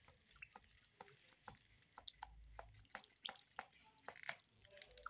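White vinegar dripping and trickling from a plastic bottle into a glass bowl of vegetables in water: faint, irregular drips and small splashes, a few a second.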